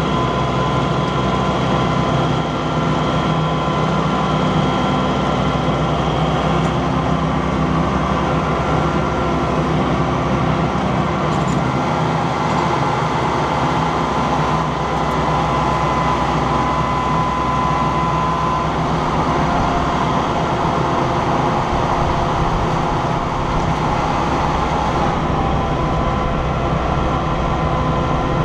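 Massey Ferguson 2760E compact tractor's diesel engine running steadily while driving a RhinoAG FA713 7-foot rear finish mower through the PTO, a loud continuous drone with a steady whine above it.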